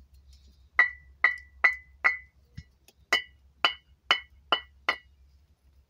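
Two fired clay bricks struck against each other nine times, a run of four knocks and then a run of five, each knock ringing briefly with a clear high tone. The ring is the mark of a well-fired, fully baked brick.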